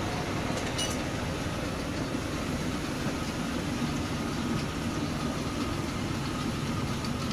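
Steady low machine rumble, even and unbroken, with a couple of faint clicks about a second in.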